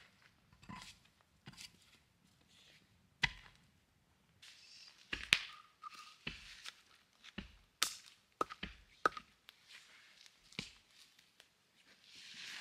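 Wood campfire crackling: irregular sharp pops and cracks every second or so, a few of them much louder than the rest.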